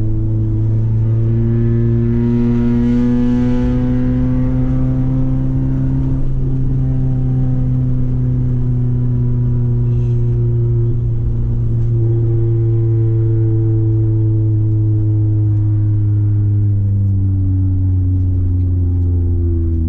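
Honda H22A Euro-R 2.2-litre VTEC inline-four with a 4-2-1 header and 3-inch exhaust, heard from inside the cabin pulling at a steady part-throttle cruise. The note rises slowly over the first few seconds, holds, then gradually eases down in the second half.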